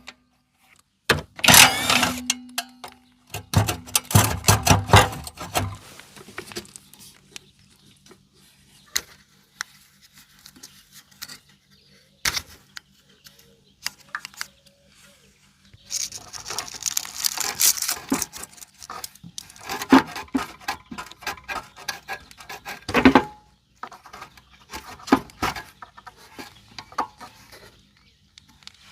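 Clicks, knocks, rattles and scraping from hands and tools working on the scooter's rusty gas tank and its parts, in irregular bursts, with a faint steady hum underneath from about six seconds in.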